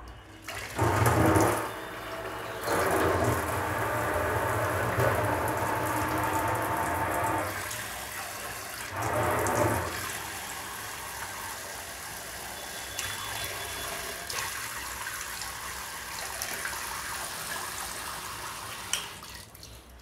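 Water running from an instant electric water heater tap through a shower-type diverter nozzle. The flow comes in loud spells about a second in, from about three to seven seconds and again around ten seconds, then runs more quietly and stops with a click near the end. The heater is running normally on enough water pressure.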